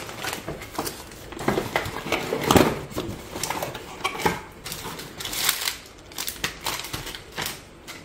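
Plastic anti-static bag crinkling and cardboard box flaps and inserts rustling as a motherboard is unpacked, with irregular crackles, taps and knocks.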